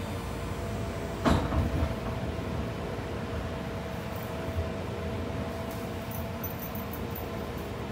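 JR West 201 series train heard from inside the car, its armature chopper control giving a steady whine of several thin tones over the running rumble. A brief loud clatter comes about a second in.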